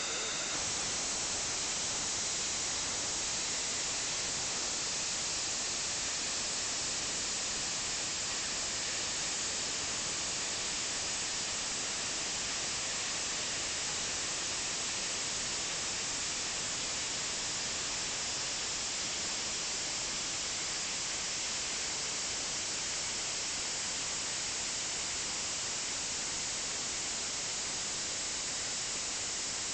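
Steady, even hiss of steam escaping from the LMS 4F steam locomotive No. 44422, unbroken and unchanging in level.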